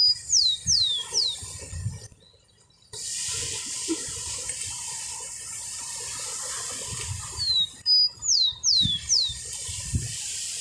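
A small songbird sings a short phrase twice, at the start and again about seven seconds in: a brief note, then three quick high whistles that each slide steeply down. From about three seconds in, a steady high hiss like running water underlies the song.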